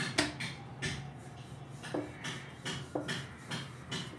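Wooden rolling pin worked back and forth over paratha dough on a marble countertop, giving a short knock or rumble with each stroke, about two a second. A steady low hum runs underneath.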